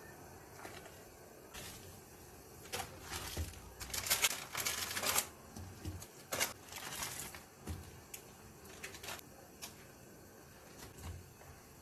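Dry instant ramen noodle blocks and their packaging being handled and set into a pan of broth: a few seconds of crackling and rustling in the middle, then scattered light clicks.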